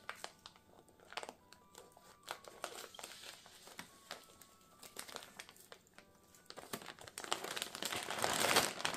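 Clear plastic packaging bag crinkling as it is handled, with scattered crackles that grow louder and denser near the end as a throw pillow is worked out of the bag.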